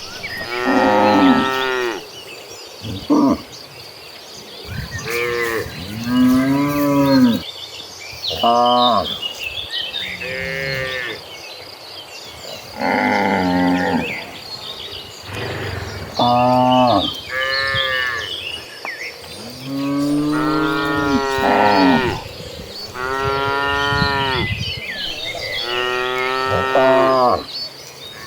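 Several cattle mooing, about a dozen long calls in turn and sometimes overlapping, with a faint steady high chirring of insects behind them.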